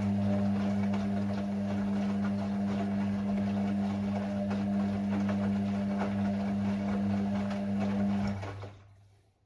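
Hoover Six Sportswear 1300 AI130 washing machine running mid-cycle with a steady mechanical hum, which stops about eight seconds in and dies away to near silence.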